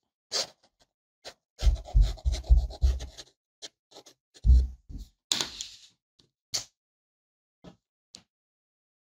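Fineliner pen scratching across watercolour paper in quick scribbled strokes, with dull knocks of pen and hand on the pad against the wooden desk. The strokes come in bursts: a long run about one and a half seconds in, another around the middle, then a few single ticks.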